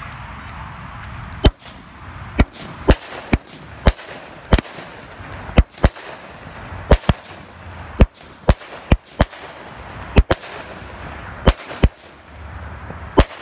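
Dominator "Orange Sky" 200-gram consumer firework cake firing its shots: about twenty sharp bangs, some in quick pairs, beginning about a second and a half in and running irregularly to near the end.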